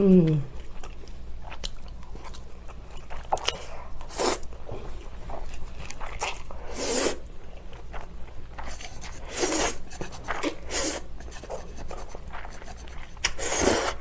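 A person eating stir-fried ramen noodles: several short, loud slurps a few seconds apart, with quieter chewing between them.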